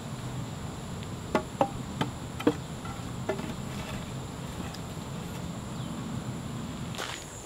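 About five sharp wooden knocks in the first half, each with a short ringing tone, as the lashed wooden poles of a bushcraft chair frame are struck and worked by hand. A steady buzz of insects runs underneath.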